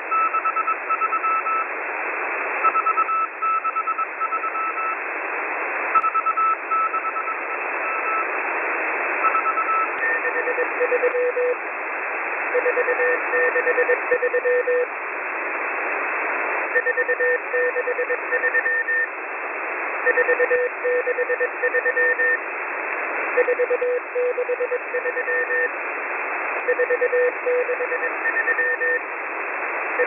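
M01 numbers station sending Morse code on shortwave, heard through an online receiver in upper sideband: groups of keyed beeps over steady radio hiss. About ten seconds in the receiver is retuned slightly and the pitch of the beeps changes.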